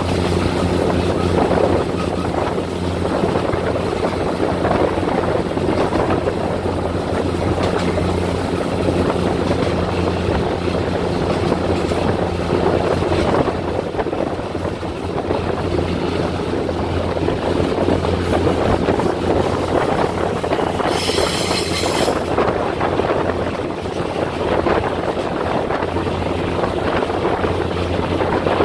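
Diesel-hauled passenger train running steadily, heard from an open carriage window: a low, steady engine hum under a continuous rumble of wheels on rail. A brief high-pitched sound cuts in about 21 seconds in.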